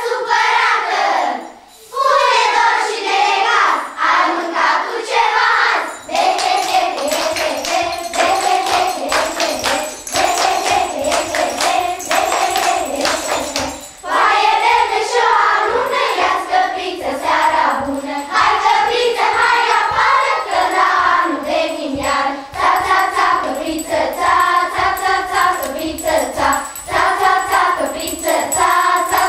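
A group of children singing a song together, with hand clapping and jingling running through it. The singing pauses briefly about a second and a half in and again near the middle.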